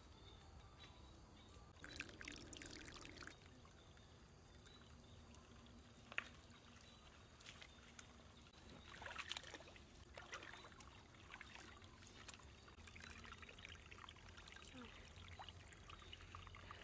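Faint trickling and splashing of water in a shallow stream, with a few short spells of crackly splashing or rustling, about two seconds in and again around nine seconds, and one sharp click about six seconds in.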